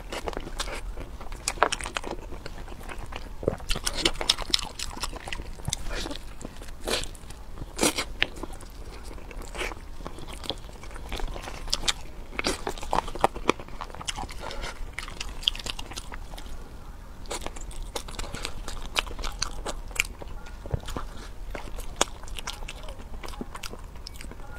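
Close-miked eating: a person biting and chewing food, with many sharp, irregular mouth clicks.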